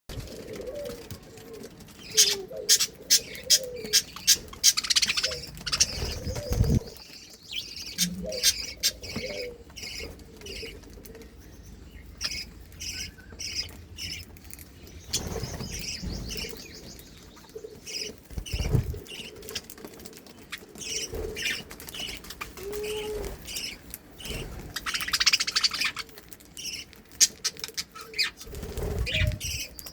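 Budgerigars chirping and chattering, with runs of quick clicks as they peck at and crunch red cabbage, and a few low thumps of fluttering wings.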